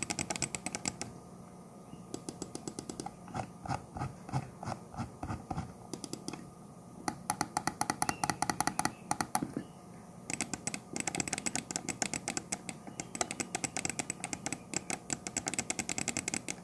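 Buttons of the 1stPlayer K8 wired mouse clicking in rapid runs, with short pauses between the runs: left, right, middle and DPI buttons demonstrated.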